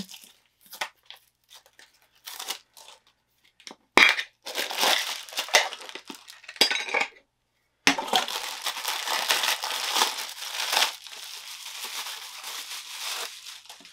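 Plastic wrapping on a Funko Soda collectible can crinkling and tearing in short scattered bursts with a few light clinks, then a longer stretch of steady crinkling in the second half.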